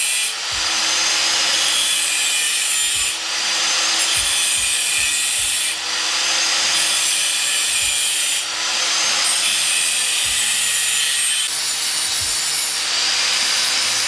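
Handheld angle grinder grinding a metal part, a steady high whine with hiss, dipping briefly about every three seconds.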